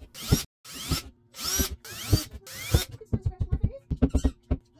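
Cordless drill boring into a wall in about five short bursts, then a quick run of taps from a rubber mallet against the wall.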